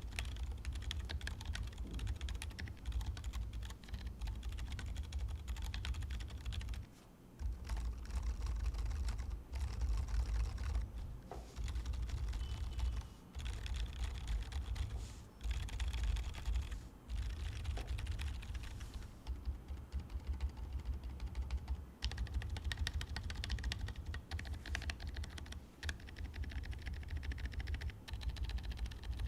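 Fast, continuous typing on a gasket-mounted mechanical keyboard with an aluminium plate and silent tactile switches (SW x TTC Peanut Latte), giving soft, muted key presses. There is a short pause about seven seconds in, after which the typing turns to modifier keys.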